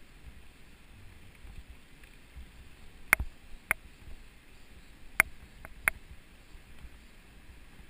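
Sharp clicks and rattles from a mountain bike and its mounted camera jolting over a rough dirt forest road: a handful of knocks a few seconds in, over a faint low rumble of tyres on the dirt.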